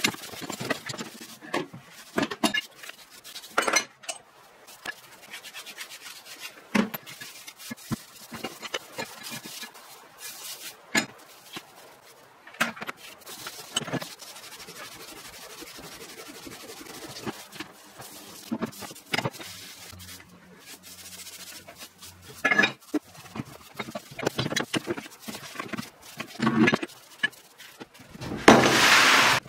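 Rusty cast-iron bench vise parts being scrubbed by hand in a wet plastic tub: rubbing and scraping with scattered clanks and knocks as the heavy parts are handled and bump together, and a louder rush of scrubbing noise near the end.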